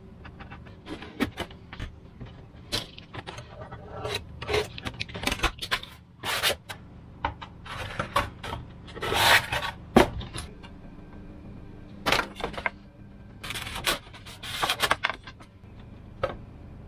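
Hands handling a Depron foam aircraft fuselage on a wooden desk: repeated short rubbing and scraping noises of the foam, with scattered sharp clicks and knocks.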